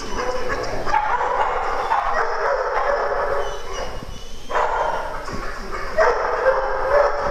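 Several dogs barking and yipping over one another in a continuous din, easing briefly about four seconds in and again a little over five seconds in.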